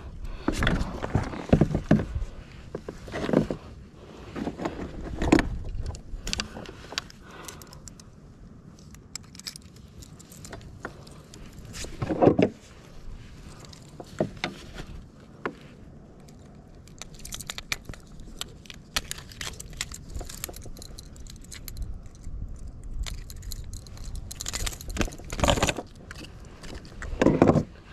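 Handling noise while a small bass is held and unhooked in a plastic fishing kayak: irregular clicks, rattles and knocks, with a few louder knocks near the start, about twelve seconds in, and near the end.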